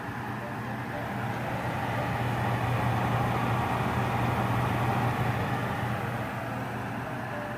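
Winia Daewoo DWR-03IDWH mini clothes dryer running, its drum turning on a newly fitted poly belt: a steady motor hum with a whirring rush, growing louder through the middle and easing off near the end.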